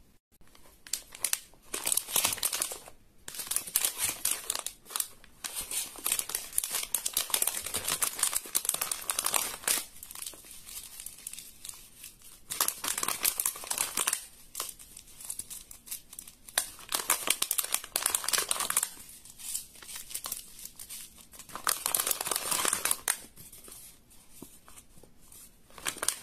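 Crinkling, crackling handling noise in repeated bursts of one to three seconds, with short quieter gaps between them.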